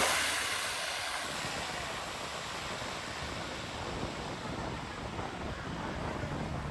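Engine noise of a low-flying airplane that has just passed overhead on its landing approach, dying away over the first second into a steady rushing hiss.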